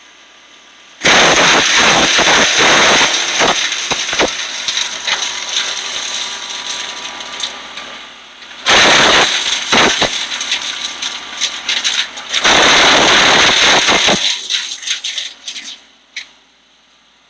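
Wood chipper shredding branches: a loud crackling, rattling chipping noise starts about a second in, dips briefly about eight seconds in, comes back, and trails off in a few last cracks near the end.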